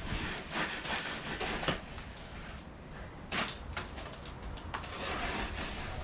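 Hand tool scraping over a fresh stucco patch on a ceiling in a series of short strokes, with a pause in the middle and a quicker run of strokes a little past halfway, over a low rumble.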